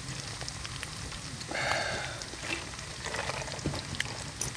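Food sizzling and crackling in a hot pan: a steady hiss dotted with many small pops that sound much like rain, with a short louder burst of hiss about one and a half seconds in.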